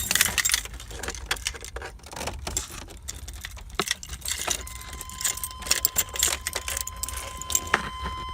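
Light jangling and clicking of small metal parts being handled in the truck's cab. About halfway in, a steady high electronic tone starts and holds, and higher tones join it near the end.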